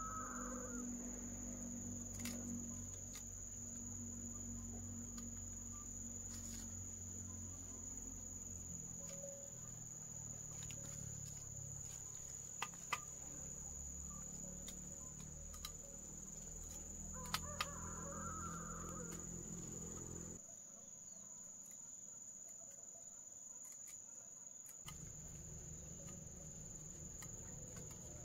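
Insects chirring in one steady high-pitched drone, with a few faint clicks.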